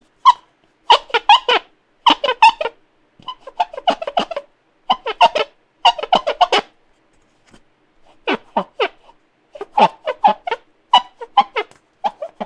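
Squeaky rubbing on a smooth, hard surface, the 'kyukkyu' squeak of wiping something clean: short bursts of three to six quick squeaks each, about ten bursts with a brief pause in the middle.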